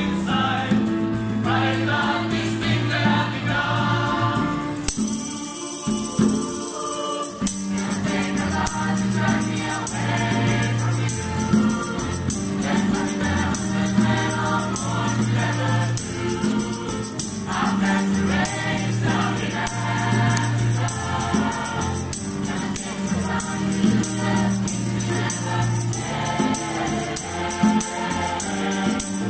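Mixed choir singing in several parts, accompanied by a hand drum and a tambourine keeping the beat.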